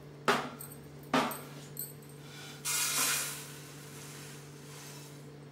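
Two sharp knocks of a wooden spatula against a non-stick kadai, then, about three seconds in, a brief rattling rush as dry-roasted coriander seeds are tipped out of the pan onto a steel plate.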